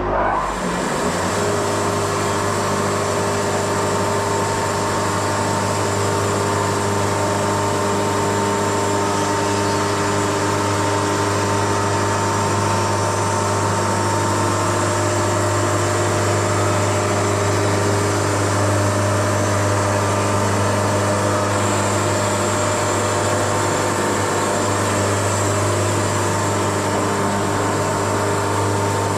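Wood-Mizer LT70 sawmill running steadily, a deep even engine hum with steady tones and hiss over it.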